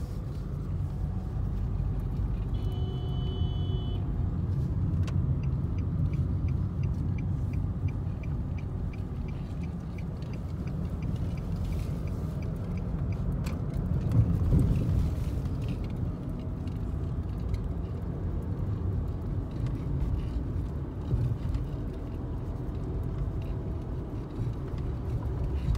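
Car cabin road noise while driving: a steady low rumble of engine and tyres. From about five seconds in, a light ticking about three times a second runs for around seven seconds.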